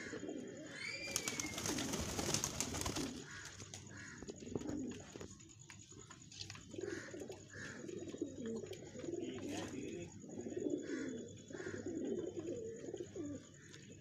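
Domestic pigeons cooing repeatedly in low, rolling calls. About a second in, a burst of rushing, rustling noise lasts for about two seconds.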